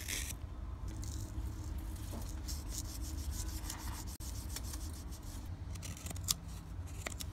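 Carbon-steel Scandi-ground bushcraft knife (2 Arrow Knives California Bowie) carving a notch into a wooden stick: a run of short scraping cuts as the blade shaves wood, with one sharper tick about six seconds in.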